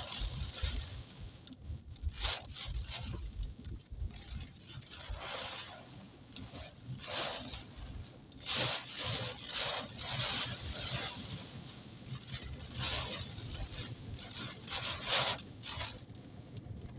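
Inside a car driving through a heavy rainstorm: windscreen wipers swish across the wet glass in repeated hissing strokes, roughly one to two seconds apart, over rain on the car and a steady low road rumble.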